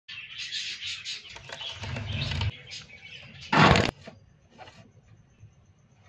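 Hagoromo (frilled) budgerigars chattering and chirping busily for about two and a half seconds. About three and a half seconds in comes one short, loud rustling burst.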